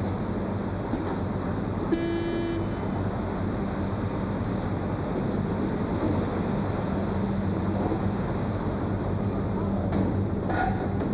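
Steady din of a car assembly hall with a low hum, and a short horn-like tone about two seconds in.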